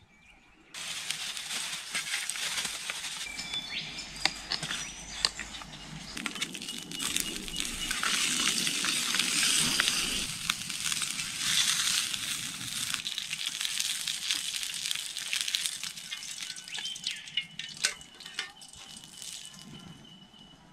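Small campfire of sticks crackling and popping with many sharp snaps as it is tended and fanned, starting about a second in.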